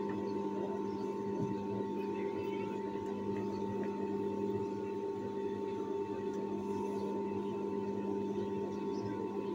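Steady electric hum of an industrial sewing machine's motor running idle, with no stitching.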